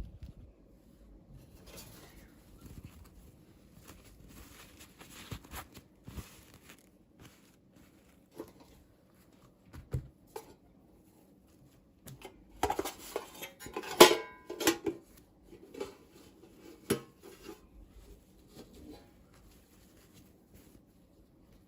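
Small hard plastic pieces clicking and clattering as miniature toys and their packaging are handled, in scattered taps with the loudest burst of clatter a little past halfway.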